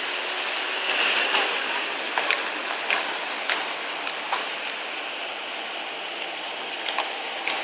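Steady street traffic hiss, louder as a car passes about a second in, with sharp, irregular clicks and taps scattered through it.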